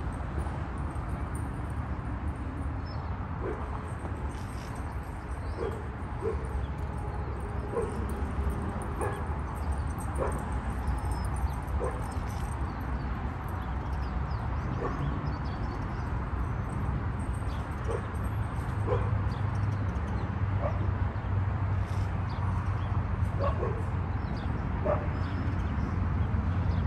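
A dog barking in short, separate barks about every second or two, over a steady low rumble.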